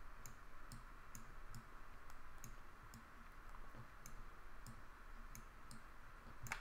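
Faint, irregular clicks, about two a second, of a stylus tapping a drawing tablet while handwriting, over a faint steady hiss.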